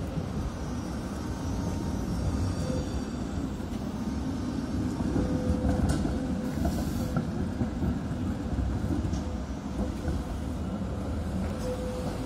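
Tatra T6A5 trams passing close by on street track: a steady low rumble of the wheels and running gear on the rails, with a faint whine that comes and goes.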